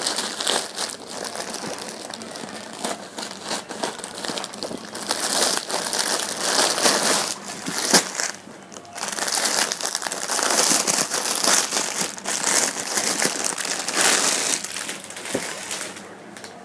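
Plastic courier mailer and clear polythene garment bag crinkling and rustling as they are handled and pulled open, with a brief lull about halfway through, dying down near the end.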